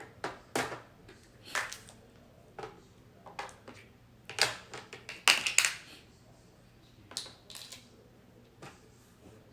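Plastic keys of a toy cash register being pressed: irregular clicks and taps, a cluster of louder ones about five seconds in.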